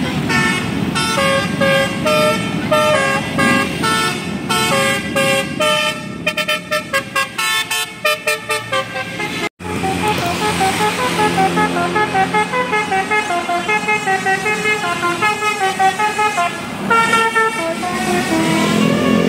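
Tour bus 'telolet Basuri' musical air horn playing a tune of quick stepped notes. It cuts off sharply about halfway through, and another horn tune of the same kind follows.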